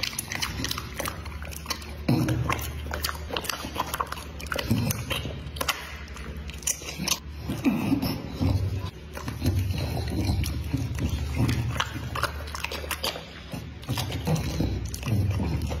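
A dog chewing and licking food, with many wet, irregular mouth clicks and lip smacks.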